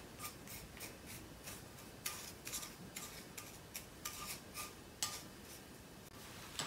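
Wooden chopsticks pressing and turning a piece of meat in breadcrumb coating in a ceramic bowl: a quiet run of short crumbly scrapes, several a second, with light taps of the chopsticks ringing on the bowl.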